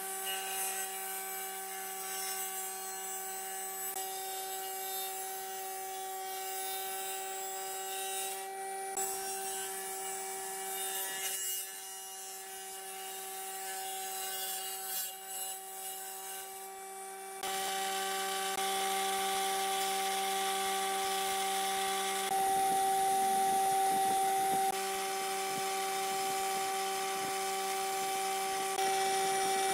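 Combination woodworking machine running with a steady motor hum, its table saw blade ripping a pine pallet board along a tapered line. Past the middle the sound changes and grows louder as a board is fed over the machine's jointer cutterhead and planed.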